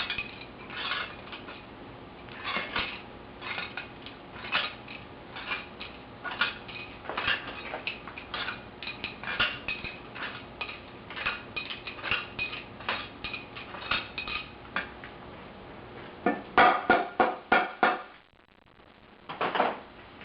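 Metal tools and engine bolts clinking and clicking in a steady string while the rotary engine is unbolted, with a quick run of louder clicks near the end.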